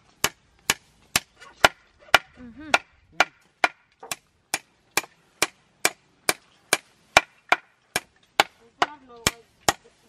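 A tool striking wood in steady, sharp blows, very even at about two a second, as in hut-building work on timber.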